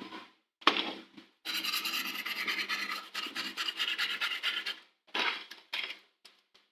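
Scratching and rubbing on a laptop circuit board during component work: a short scrape, then about three seconds of quick, even strokes, then a few brief scrapes.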